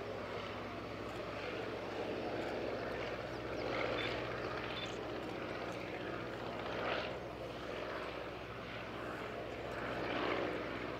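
VL Viima II biplane's radial engine and propeller droning steadily in flight, swelling a few times in loudness.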